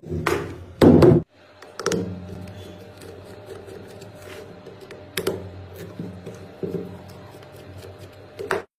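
A screwdriver working the terminal screws of a small sealed lead-acid motorcycle battery, with clicks and knocks as the tool and battery are handled. The loudest clatter comes in the first second, with single knocks about two, five and seven seconds in. The sound cuts off abruptly just before the end.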